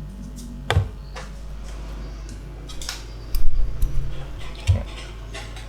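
Small clicks and knocks of parts and tools being handled on a workbench, loudest in a short cluster a little past halfway, over a steady low hum.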